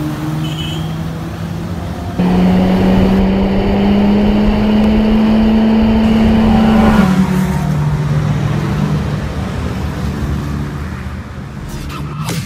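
Honda City with an aftermarket exhaust driving: a steady exhaust drone that gets suddenly louder about two seconds in, then climbs slowly in pitch as the car accelerates. About seven seconds in, the pitch drops and the drone carries on lower and gradually fades.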